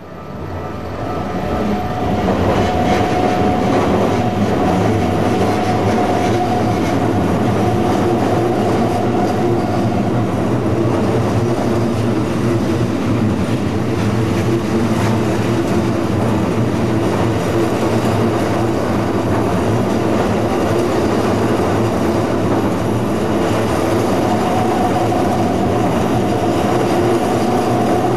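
Keikyu electric train rolling past close to the track, wheels clicking over rail joints under a steady running rumble with a held tone. The sound builds over the first couple of seconds and then stays steady.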